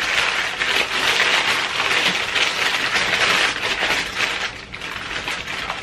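Brown kraft packing paper crinkling as it is pulled off a wrapped item, a dense crackle that eases off after about four and a half seconds.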